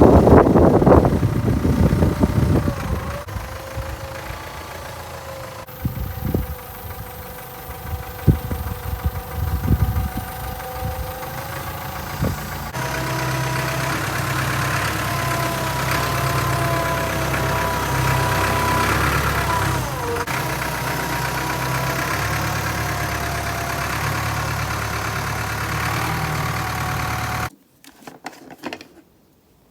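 Toro ride-on mower engine running, its pitch drifting up and down with a few sharp knocks in the first half. It cuts off abruptly near the end.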